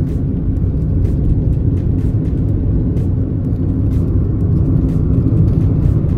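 Steady low rumble of tyre and engine noise heard from inside a moving car.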